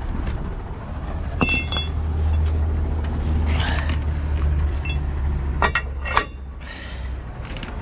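A truck's diesel engine running, growing louder about a second in and dropping back just after six seconds in, with sharp metallic clanks about a second and a half in and twice near six seconds.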